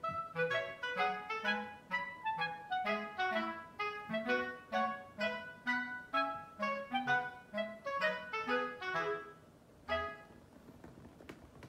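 Background music: a lively tune of quick, separate notes that breaks off about nine seconds in, with one more note a second later before a short pause.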